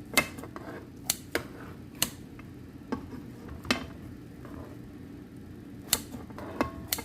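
Metal utensil clinking and tapping against cookware, about eight sharp separate knocks, a few with a brief ring.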